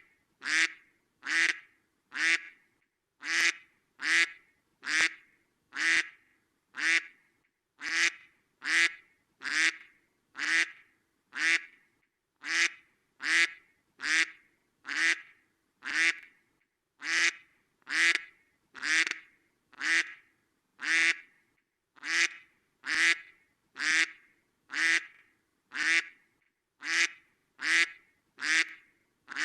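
A duck quacking over and over, about three short quacks every two seconds, evenly spaced and each much like the last.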